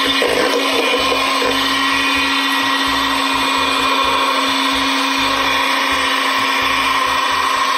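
Handheld electric mixer running steadily, its beaters whirring through butter and condensed milk in a stainless-steel bowl.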